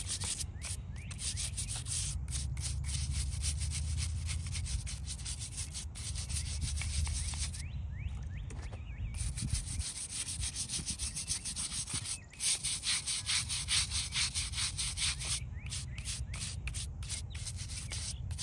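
A small brush scrubbing a stone angel statue on a headstone with quick, even back-and-forth strokes, pausing briefly twice partway through.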